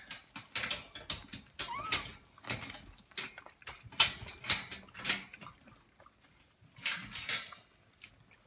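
Havanese puppies and their mother shuffling over crinkly disposable puppy pads and a paper bag: a run of irregular crinkling and rustling, with one short puppy whimper about two seconds in.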